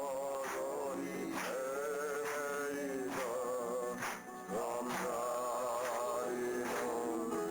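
Live folk song: a voice singing long held notes with vibrato over an accompaniment that keeps a steady beat of about two strokes a second, with a brief pause about four seconds in.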